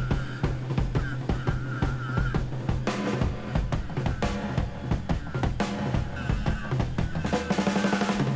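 Background music: a drum-kit-driven track with a steady beat of bass and snare drum under a held bass line.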